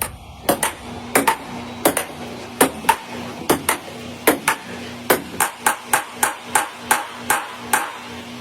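Sparse section of an electronic music track: evenly paced sharp pings or clicks, mostly in pairs, over a faint held bass note.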